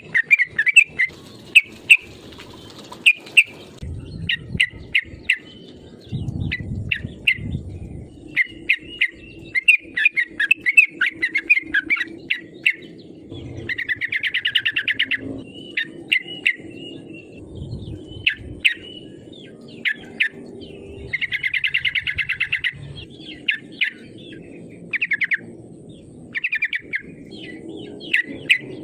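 Yellow-vented bulbul singing: a run of short, bubbly chirped phrases, with two fast chattering trills about halfway through and again later on.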